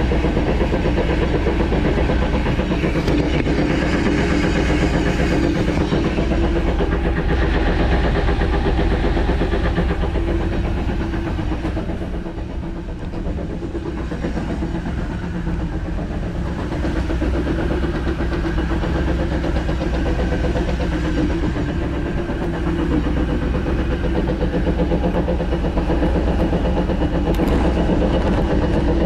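2010 Jeep Wrangler JKU running in gear on jack stands, its rear drivetrain making a repeating whir-whir noise like an old train over the engine. It could be bearings, in the owner's view, since the rear differential gears show no metal flakes and the driveshaft has no play. The sound dips briefly about twelve seconds in.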